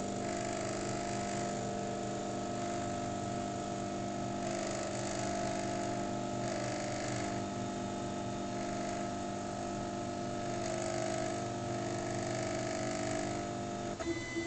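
Silhouette SD cutting machine's carriage motor running with a steady whine and a rapid ratcheting clicking: the cutting head has overrun its start position against the housing and the drive belt is slipping. The sound cuts off near the end.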